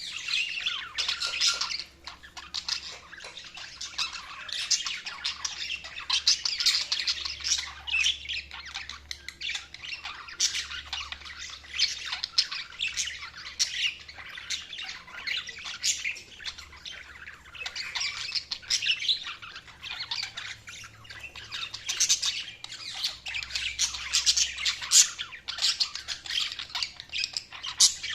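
Budgerigars chattering and chirping continuously, a dense mix of rapid warbles, chirps and squawks with no pauses.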